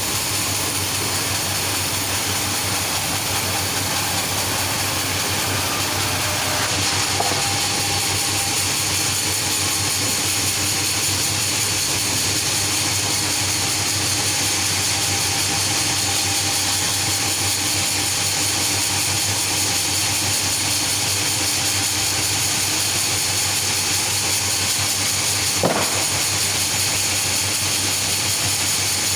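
Sawmill machinery running steadily: a motor hum under a strong hiss. There is a brief knock about seven seconds in and a sharper one near the end.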